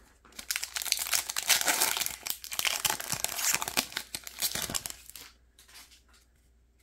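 Foil wrapper of a trading-card pack crinkling and crackling as it is ripped open by hand. The crackle is dense from about half a second in and dies down to a few light rustles around five seconds in.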